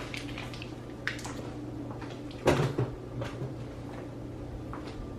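Kitchen handling noises while tea is made: a few light clicks, and one louder knock with a low thud about two and a half seconds in, like a cupboard door shutting.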